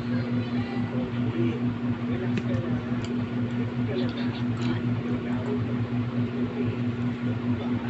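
A small motor humming steadily at one low pitch, with a few faint small clicks between about two and five seconds in.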